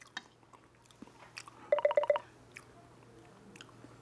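Faint clicks of metal chopsticks against the dish and quiet chewing, broken about two seconds in by a short run of five or six quick, high pitched pips, the loudest sound here.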